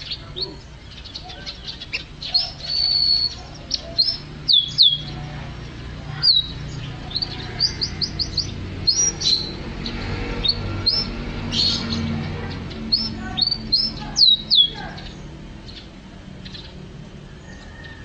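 Canary singing a fast, varied song of high chirps and trills, with sharp downward-sweeping whistles about four to five seconds in and again near the end, over a low steady hum.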